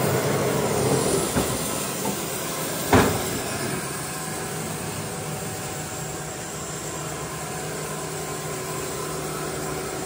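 Band sawmill running steadily with a machine hum, and one sharp knock about three seconds in.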